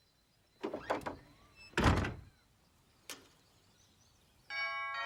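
A few knocks, then a heavy door thump about two seconds in. Near the end a doorbell starts to chime, several bell tones ringing together.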